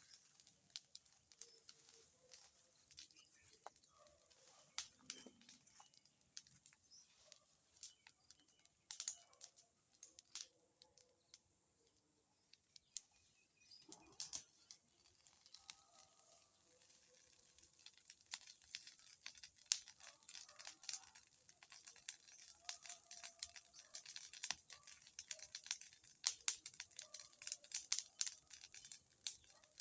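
Bonfire crackling: irregular sharp pops and snaps, sparse at first and coming thick and fast in the second half.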